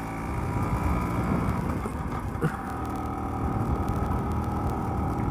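Bajaj Chetak scooter's two-stroke single-cylinder engine running steadily under way, with the same sound as an auto-rickshaw. A single brief knock comes near the middle.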